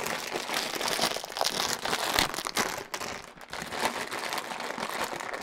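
Thin clear plastic bag crinkling continuously as hands open it and pull out a bundle of black power-supply cables.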